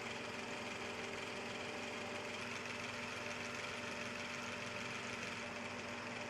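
Bissell PowerForce bagged upright vacuum cleaner running steadily: a constant motor hum under an even rushing hiss of airflow.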